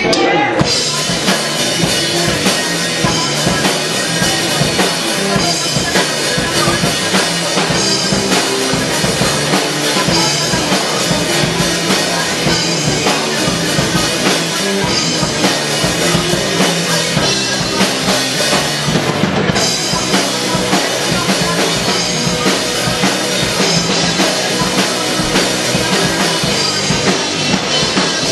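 A band playing a song, led by a drum kit with bass drum and snare keeping a steady beat under dense instruments. It is loud and continuous.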